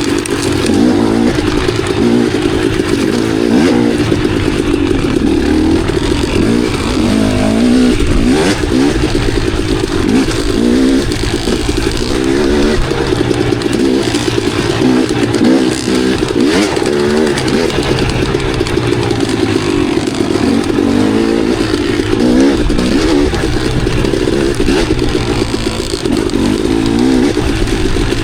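Enduro dirt bike engine being ridden on a trail, its revs constantly rising and falling with throttle and gear changes.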